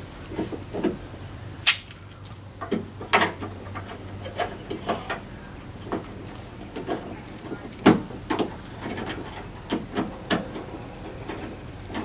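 Irregular sharp clicks and knocks of a small hand tool, a screwdriver-style driver made from a socket extension, working a screw among the metal and plastic parts inside a car door's latch area. The loudest knocks come about two seconds in and about eight seconds in.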